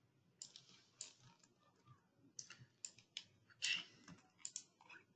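Faint computer keyboard typing: a run of irregular keystroke clicks as text goes into a form field.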